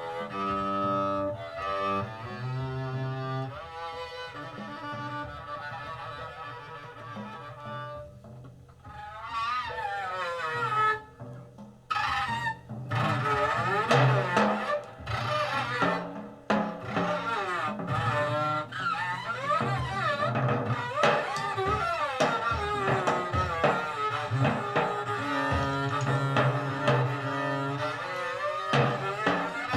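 Jazz double bass played with the bow, a long solo of sliding, bending notes that grows busier and louder about a third of the way in.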